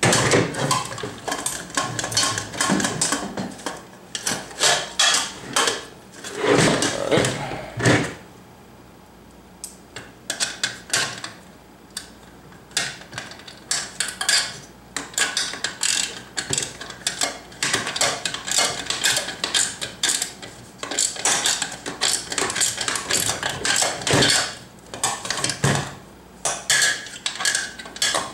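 Parts of an Alvin swing-arm lamp head and shade being handled and fitted together by hand: irregular clicks, knocks and rattles, with a quieter pause about eight seconds in.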